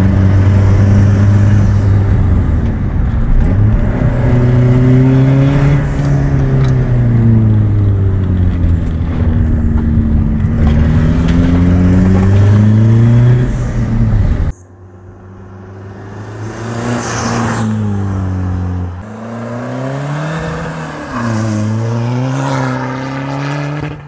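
Tuned Peugeot 206 2.0 HDi four-cylinder turbodiesel being driven hard, its pitch rising and falling repeatedly, heard loudly from inside the car. About 14 seconds in, the sound cuts to a quieter outside recording of the same car running and revving, loudest as it comes close near the middle of that part.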